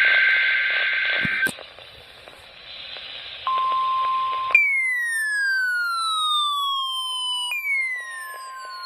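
Weather-radio warning alarm test signal. A loud hissy tone cuts off about 1.5 s in. About 3.5 s in a steady beep tone starts, joined a second later by a falling whistle-like sweep that glides down over about three seconds, twice.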